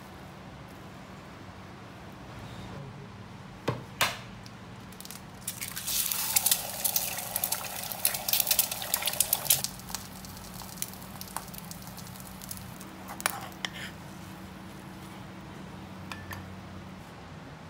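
Egg frying in hot oil in a small pan, sizzling and crackling for about four seconds. Two sharp knocks come just before it, and a low steady hum runs underneath.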